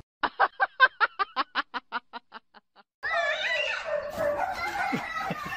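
A quick run of laughter, about six even 'ha's a second, fading out over roughly three seconds. After a short silence comes a busier stretch of high, wavering cries with a few sharp knocks.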